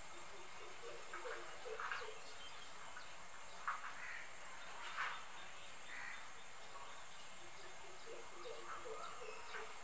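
Faint outdoor ambience: birds calling, with a run of quick low notes about a second in and again near the end, over a steady high-pitched insect drone.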